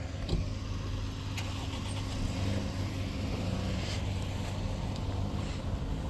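A motor engine running steadily with an even low hum.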